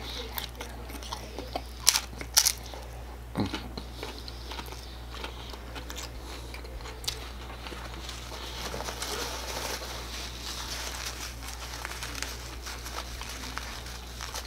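Close-up crunching of a hard-shell taco being bitten and chewed: a few sharp crunches in the first couple of seconds, then softer steady chewing.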